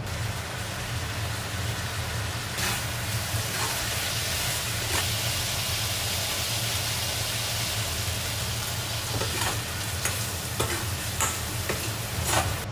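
Food sizzling in hot oil in a pan, with a steady hiss that grows stronger a few seconds in, and occasional clicks and scrapes of a utensil stirring it.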